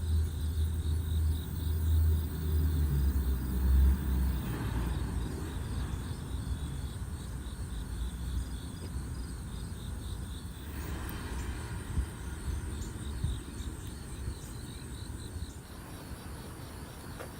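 Outdoor ambience: insects chirping steadily in a fast, even rhythm over a low rumble that is heaviest for the first four seconds or so, then eases.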